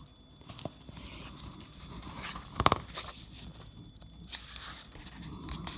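Handling noise from a paperback book being opened: the cover and pages rustle and scrape, with one sharp knock near the middle.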